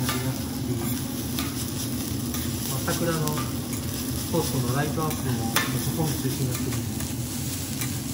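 Fried rice sizzling on a flat steel teppan griddle while two metal spatulas chop, scrape and turn it. Scattered sharp clicks and scrapes of the blades on the steel plate run through the steady sizzle.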